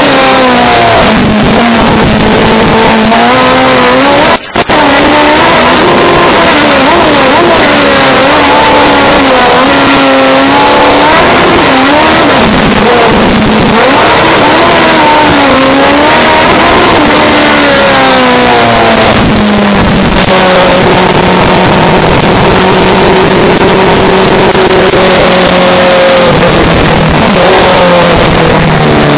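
Race car engine heard loud from inside the cockpit, revving up and down again and again through the gears, with a momentary drop-out about four and a half seconds in. Over the last ten seconds it runs steadier at lower revs, its pitch slowly falling.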